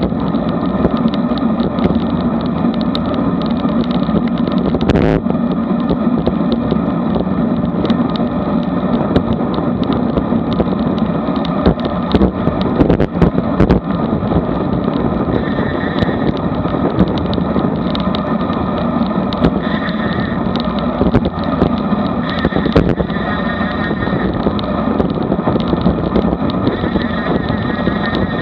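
Steady wind rush and road noise on a road bike's action camera at about 20–25 mph, with many scattered clicks and rattles.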